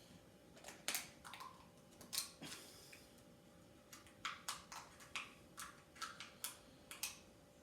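Quick taps and scrapes of a hole being punched and worked open in the side of an aluminium drink can, about fifteen sharp strikes, coming faster in the second half.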